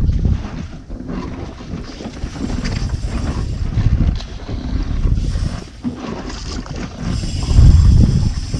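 Wind buffeting an action camera's microphone in gusts of low rumble, over the wash of sea water around a small boat.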